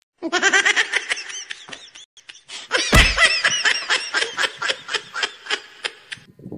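High-pitched laughter in quick pulses, in two bouts: a first burst, a short break, then a louder, longer one that opens with a sharp thump about three seconds in.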